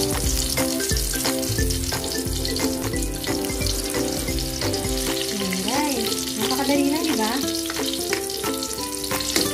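Eggplant omelette frying in hot oil in a wok: a steady crackling sizzle. Background music with held notes plays underneath, with a low beat that stops about five seconds in.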